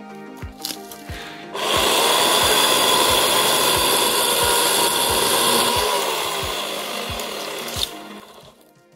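Small electric chainsaw running and cutting through thin sapling stems for about six seconds, starting about a second and a half in. Its steady whine sags a little in pitch as it bites, then it stops near the end. Background music with a regular beat plays under it.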